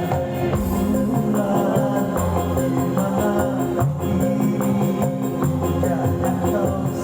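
Dangdut band music in an instrumental passage: steady bass notes and melody instruments over a quick tambourine and hi-hat beat, with no vocal line.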